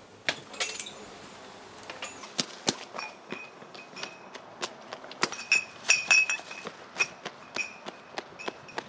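Quick running footsteps on hard pavement: sharp steps about three a second. From about three seconds in, a high ringing tone sounds on and off over them.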